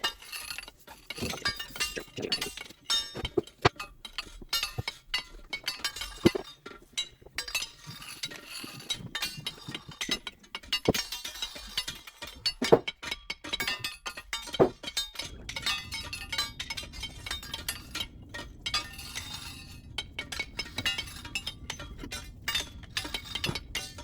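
Wooden toolbox kit pieces being handled and fitted together: quick, irregular clicks, taps and knocks, with a low steady hum joining about halfway through.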